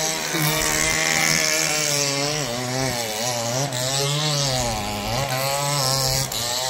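A small engine running steadily, its pitch wavering slowly up and down.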